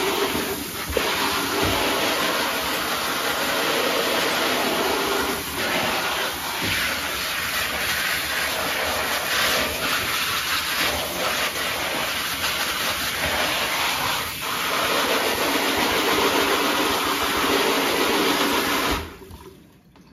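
Handheld shower spraying water onto a TPU-coated polyester dry bag and the tub floor, a steady hiss of falling water. The water shuts off about a second before the end.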